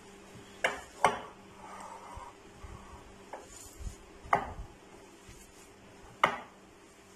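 Hand kneading a raw minced-beef kebab mixture in a glass bowl: a soft rustle of the mince and four sharp clinks of the glass bowl as it is worked, the loudest about a second in and near the end.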